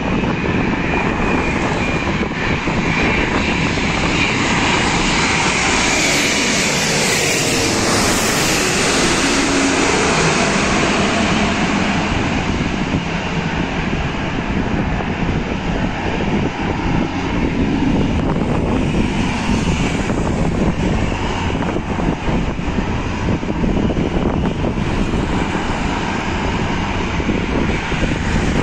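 Airbus A330-900neo airliner's Rolls-Royce Trent 7000 turbofans on final approach and landing: a steady, loud jet roar that swells as the plane passes low overhead about 6 to 9 seconds in, then goes on as it lands and rolls out on the runway.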